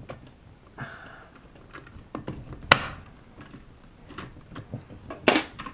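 Metal clicks and knocks from handling a Kaba Simplex 1000 mechanical lock's knob and latch hardware, with a brief scrape just before a second in and two sharp, louder clicks near the middle and near the end.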